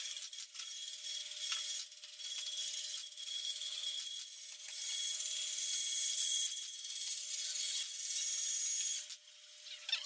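Thin pieces of pallet wood rubbing and scraping against each other, with a few short clicks, over a steady hiss.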